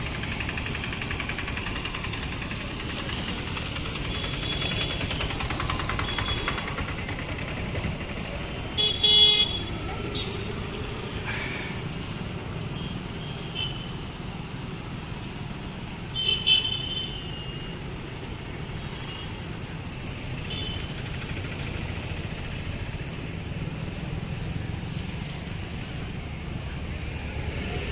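Street traffic running steadily, with vehicle horns honking now and then, the two loudest short honks about nine and sixteen seconds in, and people's voices in the background.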